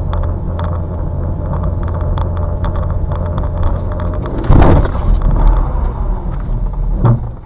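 Steady road and engine rumble inside a car, with frequent clicks and rattles, then about four and a half seconds in a loud crash as the car hits the side of a flatbed truck, its noise dying away over about a second.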